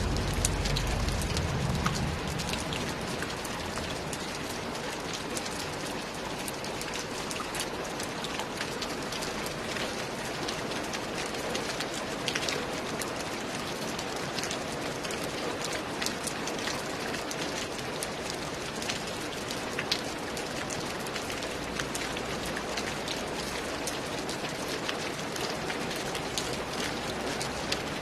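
Steady rain falling, a dense hiss dotted with many distinct drops ticking sharply on a hard surface, with a brief low rumble in the first couple of seconds.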